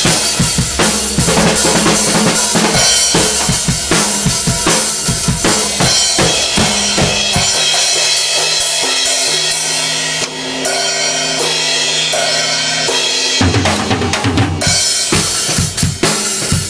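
Acoustic drum kit played with sticks: rapid snare and tom hits with bass drum and cymbal strokes, a thinner stretch of fewer hits about halfway through.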